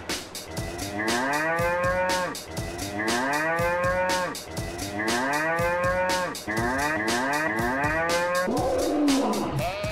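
Cow mooing: four long calls, each about a second and a half, rising in pitch and then held, over a steady drum beat.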